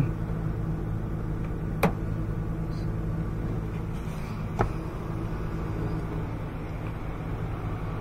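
Steady low hum of an engine idling, with two sharp clicks about three seconds apart.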